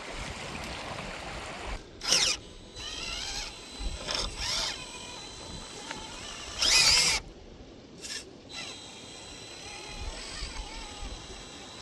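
The small electric motor and geared drivetrain of an FCX24 K5 Blazer RC crawler whining in several short bursts, pitch rising and falling with the throttle as it crawls over rocks; the loudest burst comes about seven seconds in.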